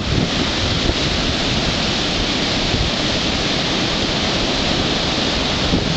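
Rough surf breaking and washing up the beach, a steady rushing of water and foam, with wind buffeting the microphone in a ragged low rumble.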